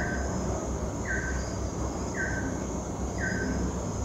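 A bird calling a short note that drops slightly in pitch, repeated evenly about once a second, over a faint steady high whine and a low hum.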